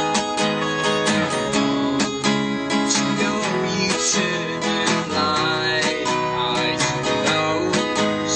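Live band music: an acoustic guitar strummed in a steady rhythm, with an electric bass and an electric guitar playing along.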